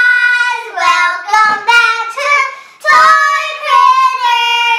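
Young girls singing together in high voices, in short phrases of held notes.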